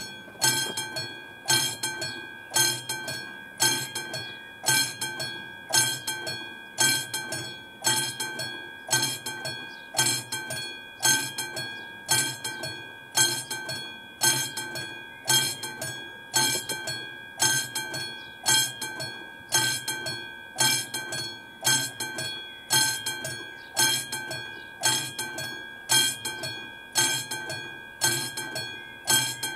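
Level-crossing warning bell on an AŽD 71 signal ringing in steady, evenly spaced strokes, each strike ringing on briefly. It is the crossing's warning that a train is approaching.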